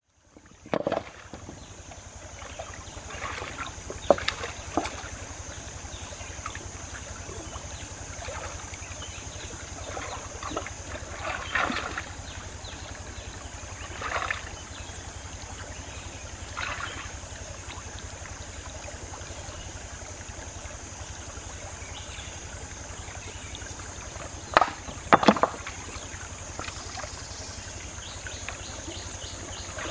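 Hands sloshing in a shallow rocky stream and moving stones: scattered splashes and stone knocks, the loudest cluster about 25 seconds in, over a steady high hiss.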